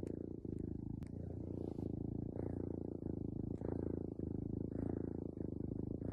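Kitten purring steadily, the purr breaking briefly about once a second as it switches between breathing in and out.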